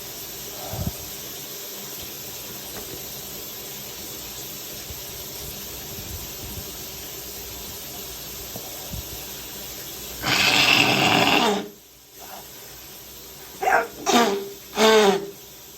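A man heavily congested with flu blowing his nose hard: one long, loud noisy blast about ten seconds in. Near the end come three short throaty voiced sounds.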